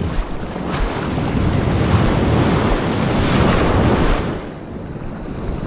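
Small ocean waves washing and breaking in the shallow surf, with wind buffeting the microphone. The rush of water builds, then falls away about four seconds in.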